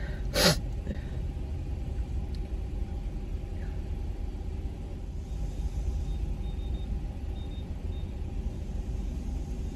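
A steady low rumble, with one short, sharp burst of breath from a person about half a second in.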